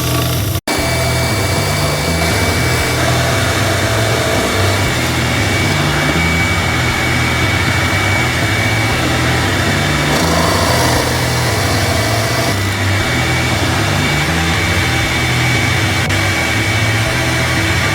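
A power tool running steadily with a steady high whine over its noise, cut off for an instant about half a second in.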